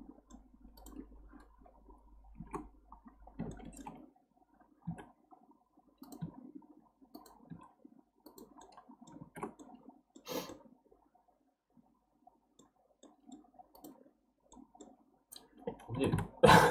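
Scattered clicks of a computer mouse and keyboard keys, faint, with one sharper click about ten seconds in. A louder voice sound comes in near the end.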